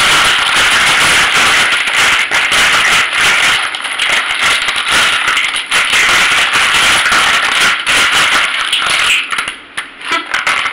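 Mussels in their shells poured and shaken out of a plastic bag into a plastic cooking bag: the shells clatter and rattle against one another with the plastic crinkling. The clatter is dense and unbroken, then thins out near the end as the bag empties.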